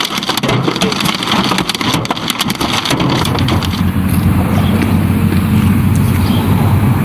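Dense rapid rattle of hailstones striking hard surfaces. About three seconds in it changes to a steady low rumble.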